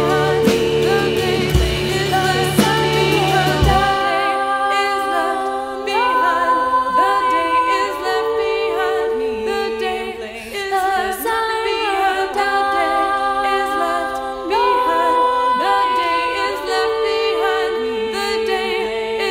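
Music of layered singing voices holding long notes that glide from one pitch to the next. A low bass part drops out about four seconds in, leaving the voices alone without drums.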